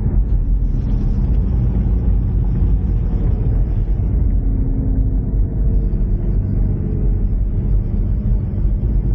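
Ford Mustang EcoBoost's turbocharged 2.3-litre four-cylinder engine and road rumble while driving at a steady pace: a continuous low drone with engine tones that drift a little in pitch.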